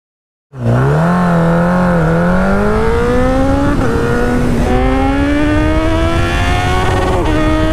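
Sport motorcycle engine accelerating hard through the gears. It starts abruptly about half a second in, and the engine note climbs in pitch then drops sharply at each upshift, several times over.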